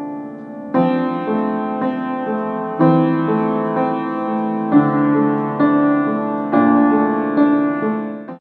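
Piano music: a slow piece with a full chord struck about every two seconds and lighter notes in between. It cuts off abruptly near the end.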